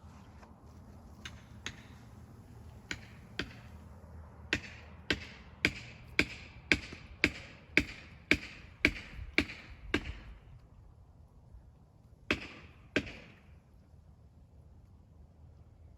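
Felling wedge being hammered into a chainsaw cut in a tree. A few spaced blows, then a steady run of sharp ringing strikes about two a second for roughly five seconds, then two last blows.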